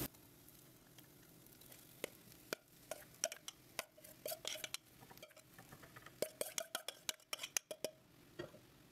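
A metal spoon clinking and scraping against a steel bowl and cooking pot as mashed potato is spooned and tipped in: scattered light clicks and taps, some ringing briefly, busiest in the middle and near the end.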